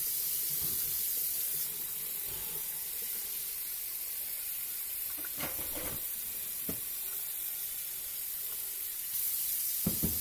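A steady hiss with a few short knocks and clinks of a metal pot being handled, about five and a half seconds in, again a second later, and near the end.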